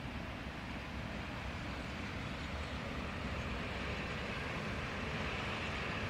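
Freight train of loaded open coal wagons rolling slowly past behind a Škoda E182 electric locomotive: a steady noise of wheels on rail that grows slightly louder.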